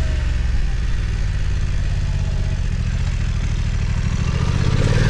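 BMW F900 XR's parallel-twin engine running steadily at low revs, the pitch beginning to rise near the end as it picks up revs again.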